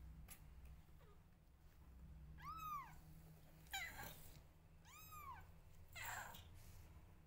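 Young kittens mewing: three or four short, high cries, each rising then falling in pitch, spread over several seconds.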